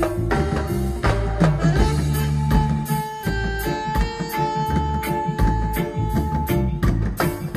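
Live nyabinghi reggae band playing an instrumental passage: electric guitar and hand drums over a deep, repeating bass line, with one note held for a few seconds in the middle.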